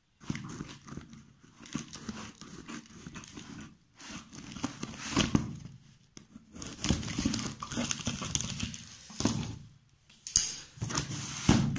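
A cardboard shipping box being opened by hand. Its flaps rustle and scrape and a paper invoice crinkles in irregular bursts of clicks and rustles, with short pauses between.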